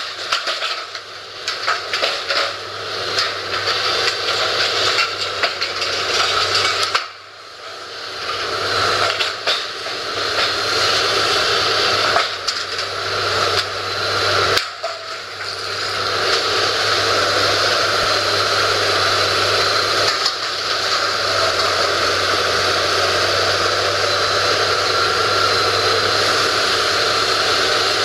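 Demolition excavator's diesel engine running with its hydraulics, with a few knocks in the first half. The sound dips briefly twice, then holds steady from about halfway.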